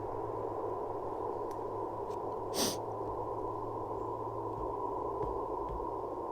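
Steady band-noise hiss from the Icom IC-705 transceiver's speaker on the 30-meter band, narrowed to a muffled low hiss by the receiver's filter, with no signal heard. One short noise about two and a half seconds in.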